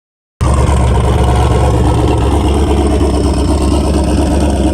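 Car engine running steadily with a deep low rumble, cutting in abruptly about half a second in.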